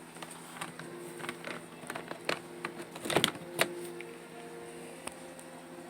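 Hard plastic clicks and knocks from handling a Packout organizer case, a dozen or so irregular taps with the loudest pair about three seconds in.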